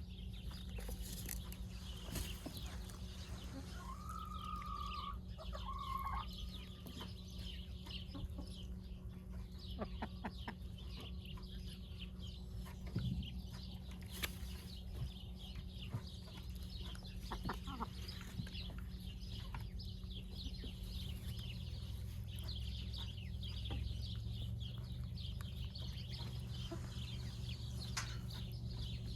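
Chickens clucking, with a couple of drawn-out hen calls about four to six seconds in, over many small scattered clicks and a steady low hum.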